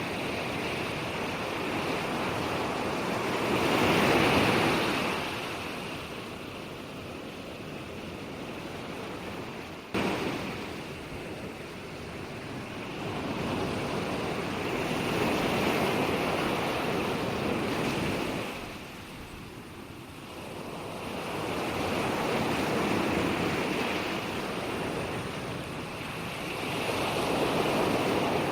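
Ocean surf: waves break and wash in, swelling and fading every several seconds. About ten seconds in the sound jumps abruptly in level.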